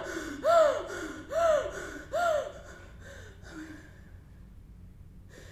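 A woman sobbing aloud: three short, high cries that rise and fall, about a second apart, then two fainter sobs as her breathing dies away after about three seconds.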